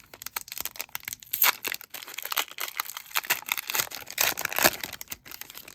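A trading-card pack's foil wrapper being torn open and crinkled by hand: quick, irregular crackling and rustling, with louder crackles about a second and a half in and again around four seconds in.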